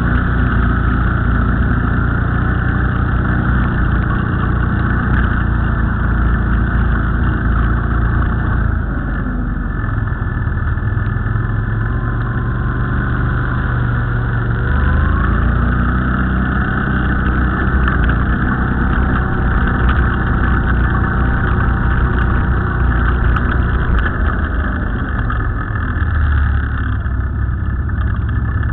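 ATV engines running during a trail ride, the engine note rising and falling with the throttle and dipping about a third of the way through.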